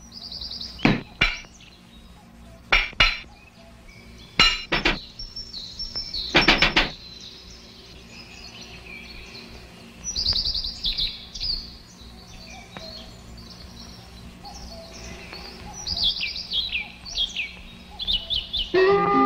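Cartoon sound effects: pairs of sharp hammer knocks over the first seven seconds or so, then high bird chirps and twitters in two bursts later on.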